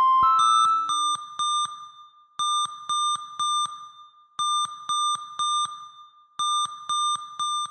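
Digital timer alarm beeping in groups of four quick beeps, each group repeating about every two seconds, after a brief run of steady tones at the start.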